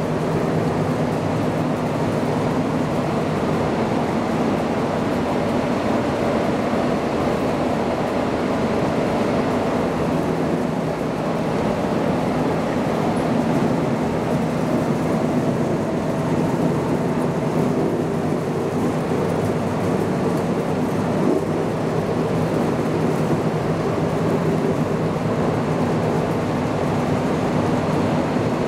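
Vertical turning lathe running in a machine shop, a steady mechanical drone and hum that does not change.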